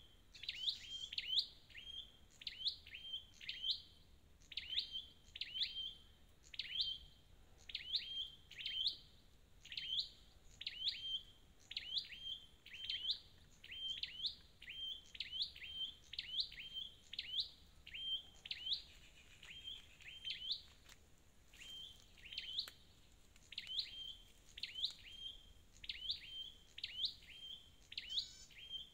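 A flowerpecker (chim sâu đầu đỏ) calling over and over: short, sharp chips, each a quick falling sweep ending in a brief note, about two a second, with a short break about two-thirds of the way through.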